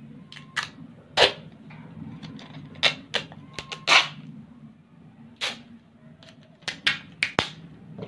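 A hand lighter being flicked repeatedly in attempts to light a firecracker fuse: about ten sharp clicks at irregular intervals, with a steady low hum underneath.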